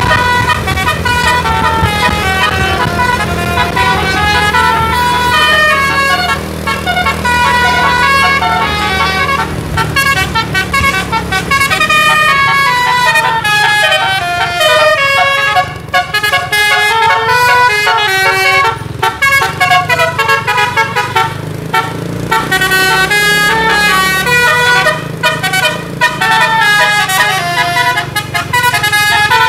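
A bus's DAV musical air horn (a telolet/basuri multi-note horn) plays quick runs of notes one tune after another, over a low engine drone.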